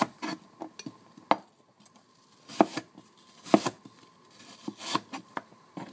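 Cleaver-style kitchen knife slicing an apple on a wooden cutting board: a string of sharp knocks as the blade comes down through the fruit onto the board. Several come close together at first, then a few more at about one-second intervals.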